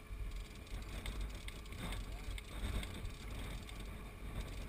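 Steady low rumble of a boat out on open water, with faint voices in the background.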